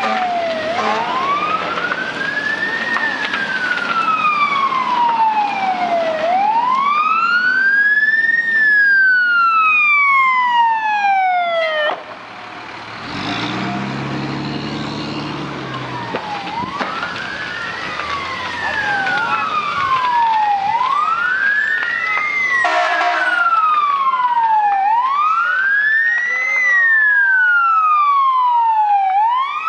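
Fire engine sirens wailing, sweeping slowly up and down at first and then faster, with a second siren overlapping in the latter half. About halfway through, a fire engine's diesel engine rumbles as it passes close by.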